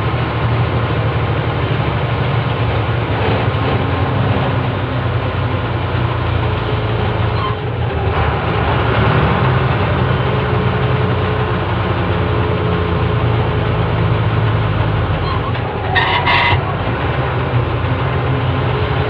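Lorry engine and road noise heard from the cab, a steady loud drone, with a brief sharper sound near the end.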